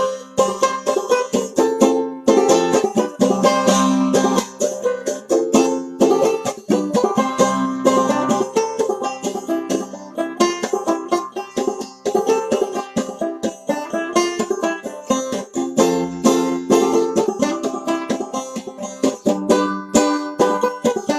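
Bart Reiter Standard open-back banjo played clawhammer style: a steady run of quick plucked notes that goes on without a break.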